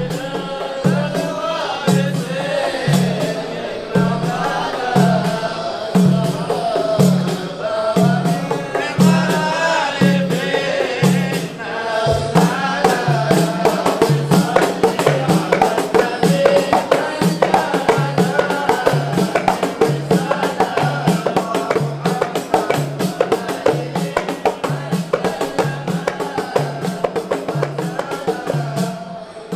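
A group of men chanting a Maulid qasida together over frame drums beating a steady rhythm. About twelve seconds in, the drumming quickens and grows denser, with many sharp strikes.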